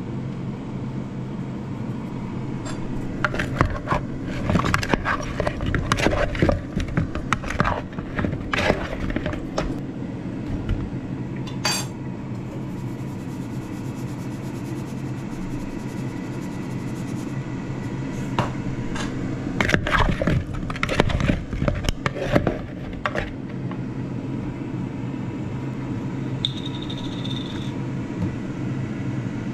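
A wooden spoon knocking and scraping against a mixing bowl as raw potato chunks are tossed with oil and seasoning, in two spells of clatter, over a steady low hum. A short high beep sounds near the end.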